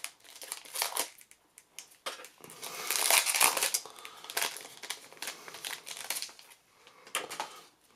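Foil wrapper of a Magic: The Gathering booster pack crinkling in irregular bursts as it is pulled apart and the cards are slid out, loudest about three seconds in.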